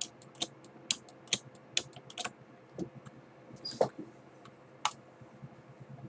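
Irregular clicks of a computer keyboard and mouse, about one or two a second and thinning out in the second half, over a faint steady hum.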